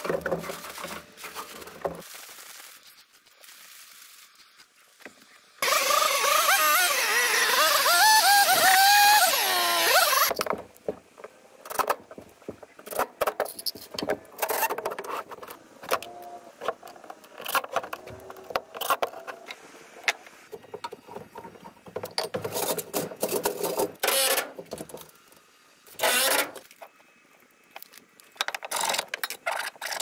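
Building-work noises from hand and power tools on wood: a loud, harsh tool noise lasting about five seconds, then many short, irregular knocks and clicks.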